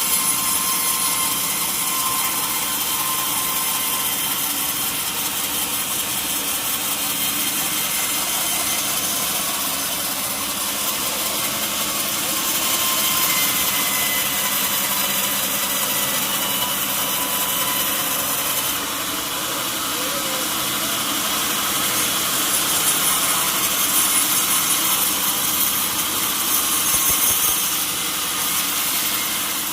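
Sawmill saw cutting lengthwise through a mahogany log, a steady, loud hiss with a faint whine that shifts slightly about two-thirds of the way through.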